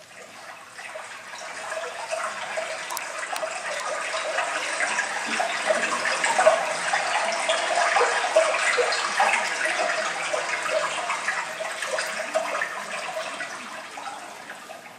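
Recorded sound of running, trickling water, fading in over the first few seconds, fullest in the middle and fading away near the end.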